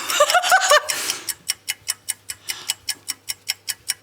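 Rapid, even clock-style ticking, about six ticks a second, like a countdown timer. A woman's nervous giggling laughter in the first second.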